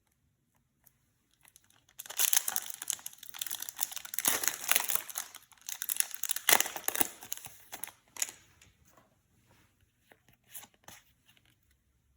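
Foil booster pack wrapper crinkling and tearing as it is ripped open by hand, a dense crackle lasting about six seconds, followed by a few light clicks and rustles.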